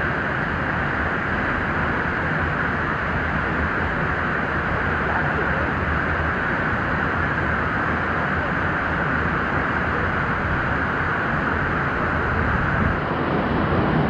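Steady rush of a waterfall plunging into its pool, an even wash of falling water with no breaks.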